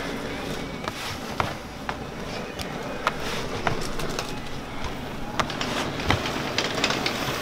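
Scattered light knocks and rubbing from thick leather-gloved hands punching and rolling a big mass of pulled candy on a table, over a steady background whir of electric fans.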